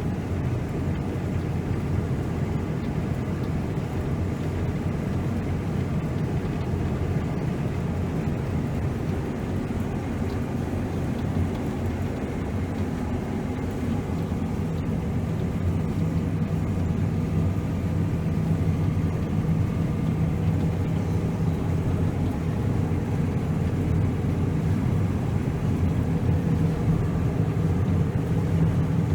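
Diesel engine of heavy harvest machinery (combine or four-wheel-drive tractor) running steadily under load, a constant low drone that grows slightly louder in the second half.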